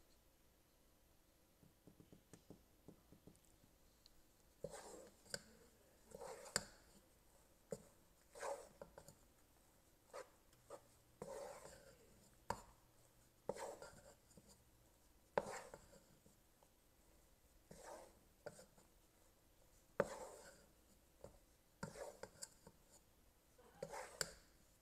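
Wooden spoon stirring mini marshmallows in a metal pot: a slow series of faint scrapes with a few sharper knocks of the spoon against the pot, about one every second or two, starting a few seconds in. The marshmallows are only starting to melt and are still lumpy.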